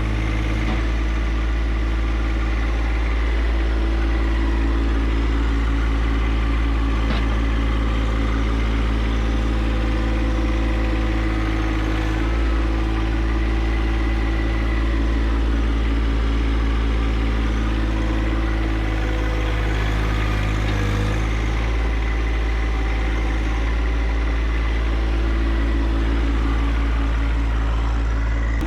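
John Deere 1025R compact tractor's three-cylinder diesel engine running steadily, with slight rises and falls in level.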